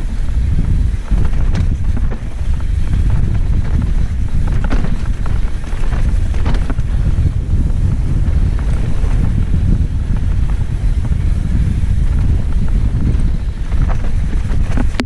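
Wind buffeting the camera microphone of a mountain bike descending fast, over a steady low rumble of tyres on rough dirt trail, with frequent short rattles and knocks from the bike.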